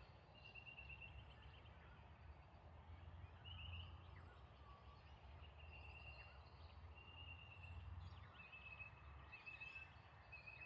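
Faint outdoor ambience: short, high, rapidly pulsed trilling calls from a small animal repeat about once a second over a low rumble.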